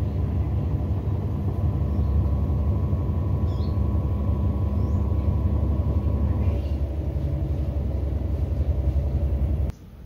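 Samsung WA80H4000 top-loading washing machine in its spin-dry cycle: the drum spins fast with a steady motor hum and low rumble. A higher tone drops out about two thirds of the way through, and the sound cuts off abruptly just before the end.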